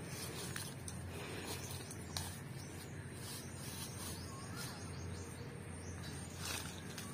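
Outdoor ambience: a steady background hiss with a few faint bird chirps and scattered light crackles of dry leaves as a goat shifts and rears on them.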